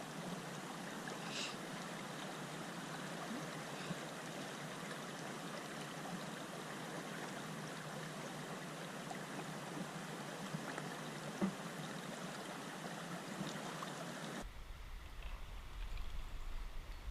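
River water rushing steadily over rocks. About fourteen seconds in, the sound changes abruptly to a duller low rumble.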